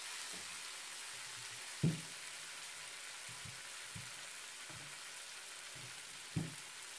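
Fried-down spice masala in oil sizzling steadily in a frying pan, a light even hiss; the masala is done and ready for the chicken. Two short knocks cut through it, about two seconds in and again near the end.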